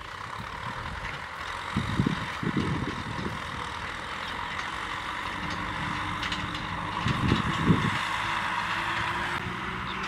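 Kubota M6040SU tractor's diesel engine running steadily under load while it pulls a disc plough through dry field soil, with a few low knocks about two seconds in and again about seven seconds in.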